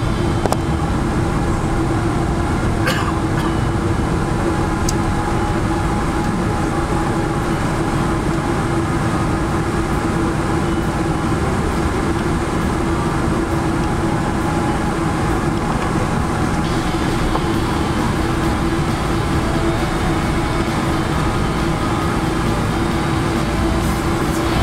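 Cabin noise of a Boeing 777-300 rolling out and taxiing after landing: a steady, dense rumble from the wheels on the runway and the engines at low power, with a constant hum running through it.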